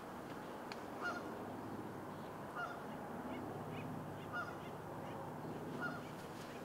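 Geese honking, several short calls about one every second and a half, over a low steady hum.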